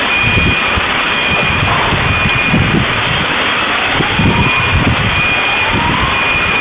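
Aftermath of a large explosion: a steady, loud rushing noise. Through it, electronic alarms sound: an on-off high beep and repeated rising whoops about every second and a half.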